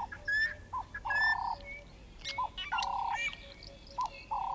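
Wild birds chirping. Among them is a buzzy call of about half a second, each time led in by a short hooked note, repeated about every second and a half.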